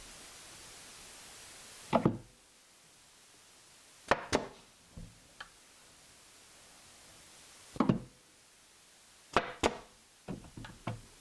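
Blind stapler clamping and shooting staples to fasten a face frame to a cabinet: four sharp double cracks a couple of seconds apart, with lighter knocks and clicks between and near the end.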